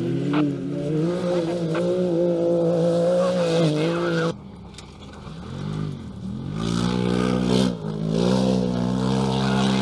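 Side-by-side UTV race car engines running hard at high revs, held near steady; about four seconds in the sound cuts to a quieter engine that revs up and down twice, then climbs back to a steady, loud high rev.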